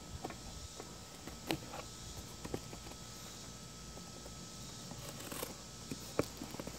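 Quiet handling of a long cardboard shipping box and a small folding knife: scattered light taps and clicks, a short scrape about five seconds in, and a sharp knock at the very end.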